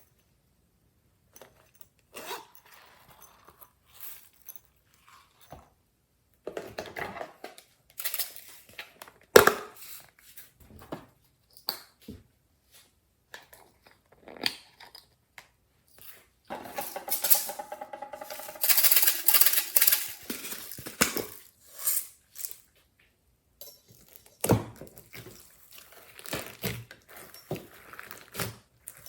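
Hands squishing, stretching and poking glossy slime: irregular sticky clicks and pops, with a louder, denser run of squelching and crackling about halfway through.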